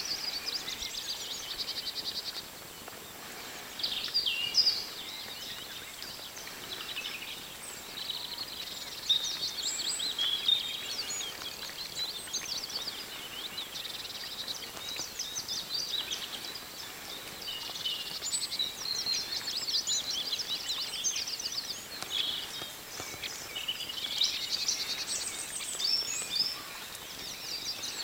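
Songbirds singing, phrase after phrase of high trills and warbles with short pauses between.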